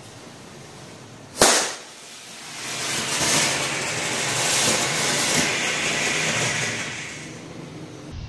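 A single sharp crack about a second and a half in, then the loud, steady hiss of a small firework rocket motor burning on a homemade toy car, building over a second, running for about four seconds and fading near the end.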